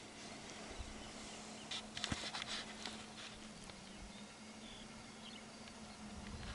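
Quiet rural outdoor ambience with a low steady hum, faint distant bird calls, and a short flurry of clicks and rustling close to the microphone about two seconds in.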